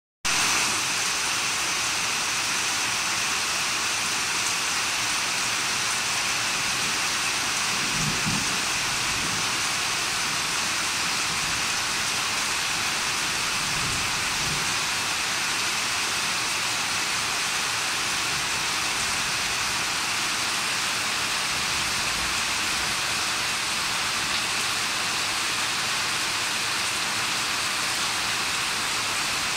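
Water pouring from a pipe into a koi tank, splashing steadily on the surface with an even hiss.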